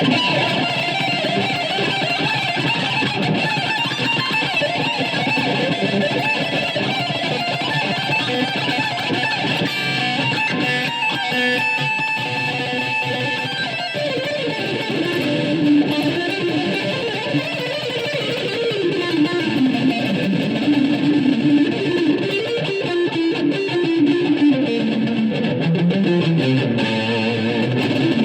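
Electric guitar improvising fast runs through heavy, noisy distortion, the noise kept as part of the sound. About halfway through the runs drop into a lower register and weave up and down.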